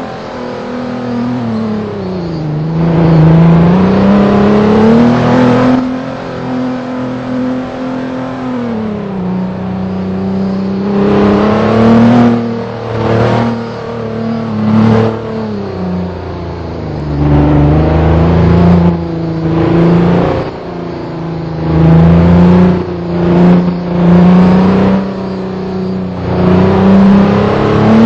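A vehicle engine running while being driven, its pitch rising and falling again and again with the throttle, with repeated surges in loudness.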